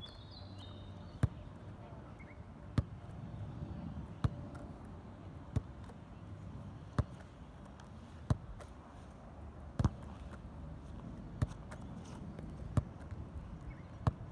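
An Australian rules football bounced on turf and caught, in a steady drill rhythm: a sharp thud about every one and a half seconds, some ten times in all.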